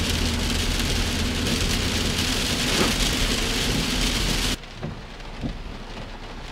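Heavy rain on a car's roof and windscreen heard from inside the cabin while driving, over a low steady engine and road hum. About four and a half seconds in it drops suddenly to a quieter rain patter with a few faint knocks.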